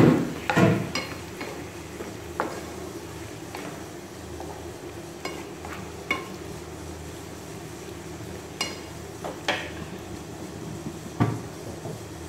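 A spatula stirring meat curry in a frying pan, scraping and knocking against the pan every second or two, over a steady sizzle of the meat frying with onions and ginger-garlic masala.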